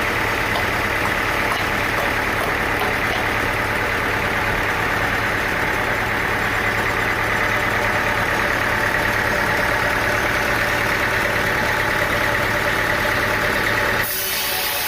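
An engine-driven machine running steadily. The sound changes abruptly near the end.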